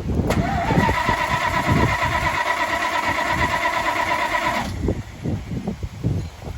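1984 Dodge Ram's starter motor cranking the engine with a steady whine for about four seconds without it catching. The straight-piped engine then gives a couple of seconds of uneven, sputtering pops: a hard start.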